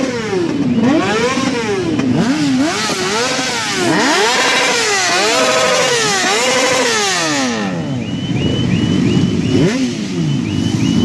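Several motorcycle engines revved over and over, their pitch rising and falling in quick throttle blips that overlap one another.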